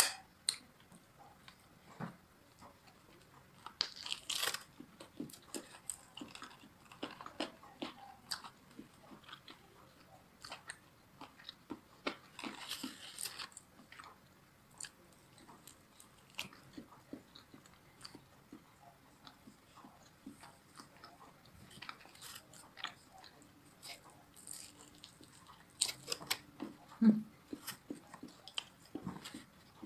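A person biting into and chewing crispy fried chicken in spicy honey glaze, close to the microphone: scattered crunches and chewing clicks, with denser runs of crunching about four and twelve seconds in.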